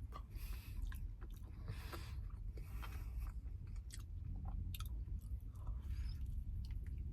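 A person chewing a mouthful of cold puff-pastry chicken and stuffing slice, with irregular small clicks and crunches from the pastry and mouth.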